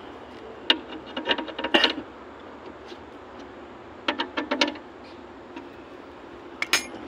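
Small metal parts and hand tools clinking and rattling as they are handled, in short clusters of clicks about a second in, around four seconds in and once more near the end.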